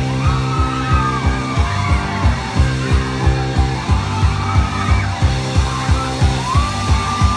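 Live rock band playing loud through stage PA speakers: electric guitars and bass over a steady drum beat, with children in the crowd yelling along.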